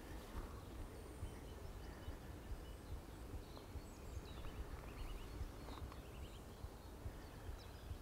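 Faint birds chirping now and then in short runs of quick high notes over a low, fluctuating rumble, outdoor spring woodland ambience.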